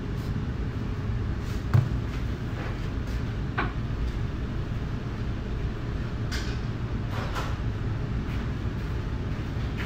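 Steady low background hum, with one soft thump about two seconds in and a few faint clicks and taps.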